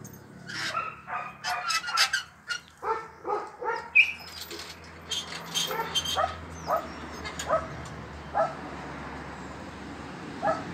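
Dogs barking: a quick run of short barks for the first few seconds, then single barks spaced out, and two more near the end.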